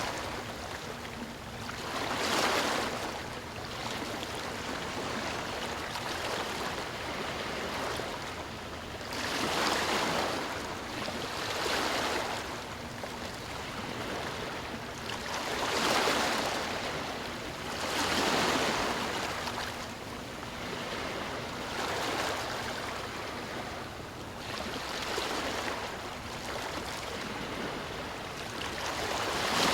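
Ocean waves washing in, the surf hiss swelling and fading every two to three seconds.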